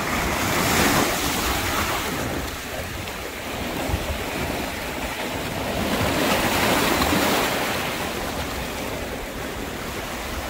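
Sea waves washing in and breaking over a rocky shoreline, the surf swelling about a second in and again around six to seven seconds.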